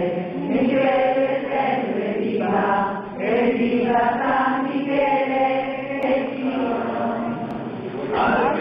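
A group of people singing a devotional hymn together, a slow chant-like tune, with a short break between phrases about three seconds in.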